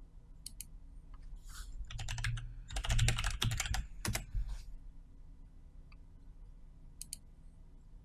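Computer keyboard typing: a quick run of keystrokes from about two to four and a half seconds in, with a few scattered single clicks before and after.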